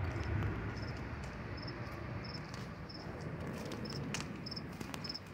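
Cricket chirping: short, high double chirps repeating about every two-thirds of a second, over a low steady background rumble.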